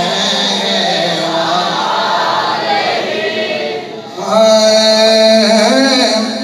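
Men's voices chanting salawat together in long held notes, answering a call to send blessings on the Prophet. The chant breaks briefly about four seconds in, then comes back louder.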